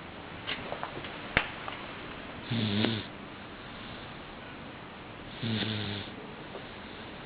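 A sleeping baby snoring lightly: two small snores about three seconds apart, each a short pitched breath of about half a second. A few sharp clicks sound in the first second and a half.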